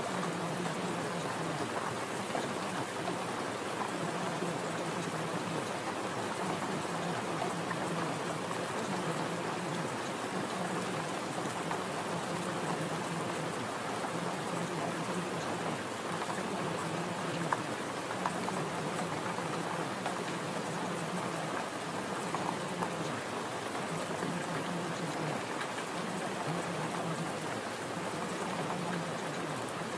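Recorded steady rain falling, an even patter with no breaks. A low hum comes and goes underneath it every second or two.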